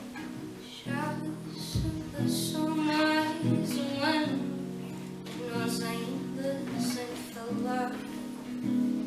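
A live performance of a song: acoustic guitar playing, with a woman singing over it from about a second in.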